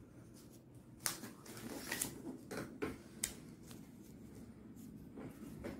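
Folded sheet of origami paper rustling as it is handled, with a run of sharp crisp crinkles and clicks from about a second in, then fainter rubbing strokes near the end.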